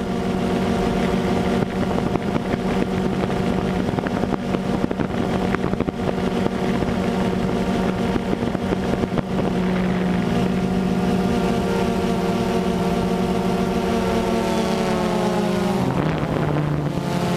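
DJI Phantom 2 quadcopter's motors and propellers buzzing steadily, heard from the camera carried on the drone. Near the end the pitch slides down and then settles lower as the motors change speed.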